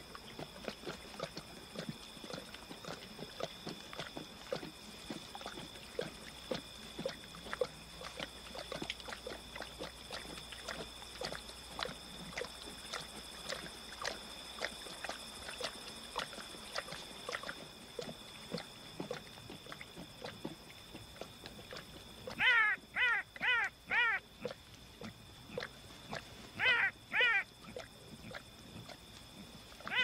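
Lions feeding on a carcass: irregular wet chewing, licking and crunching. About two-thirds of the way through come four short, pitched yelping calls in quick succession, then two more near the end.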